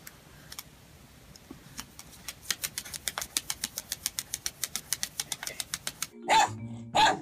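A puppy's claws tapping fast on a tablet's glass screen: a quick run of sharp clicks, about six a second. Near the end a dog barks loudly twice.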